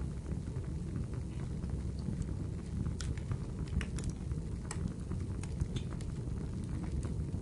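Ambient soundscape: a steady low rumble with irregular sharp crackles and ticks scattered over it.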